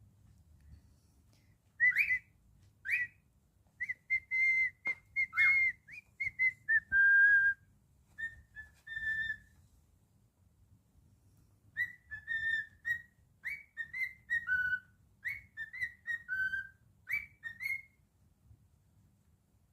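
Cockatiel whistling a song: a run of short, clear whistled notes, some sliding up or down in pitch, then a pause of a few seconds and a second run of notes.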